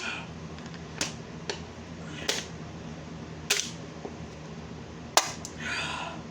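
Five sharp clicks at uneven spacing, the loudest about five seconds in, then a short breath out near the end, over a low steady hum.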